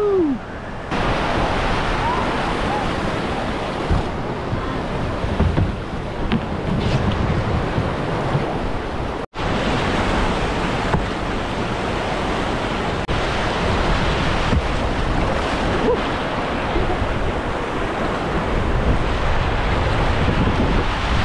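Steady rushing of whitewater river rapids, with wind buffeting the microphone. A brief cutout of all sound about nine seconds in.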